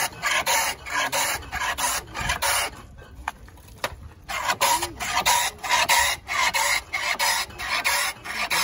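Block of ice scraped back and forth over the blade of a manual ice shaver, a rhythmic rasping of about three strokes a second, with a pause of about a second a third of the way through.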